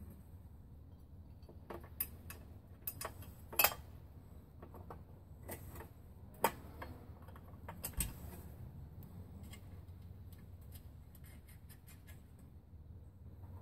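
Light metallic clicks and clinks of a pedal tractor's roller drive chain being worked onto its sprocket by hand. The clicks are scattered, a few louder ones in the first half, then a run of small quick ticks near the end.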